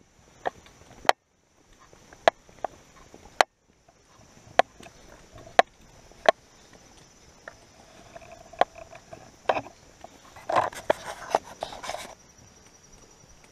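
Trekking-pole tips and footsteps clicking irregularly on a dirt forest trail, over a steady high insect buzz. A louder, rougher burst of noise comes a little after ten seconds in.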